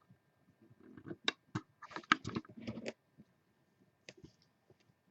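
Computer keyboard and mouse clicking: a quick run of clicks and key taps about a second in, then a couple more near the end.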